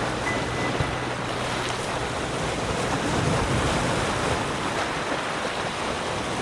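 Ocean surf: a steady rush of breaking waves.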